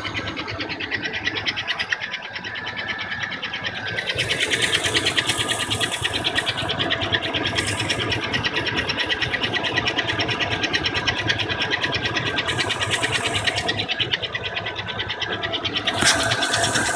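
The 5.3 V8 of a 2000 GMC Yukon XL running, with a fast, even chatter and a thin steady squeal over it. The whole sound grows louder about four seconds in. The squeal comes on only once the engine is warm; the owner first took it for the water pump but is no longer sure.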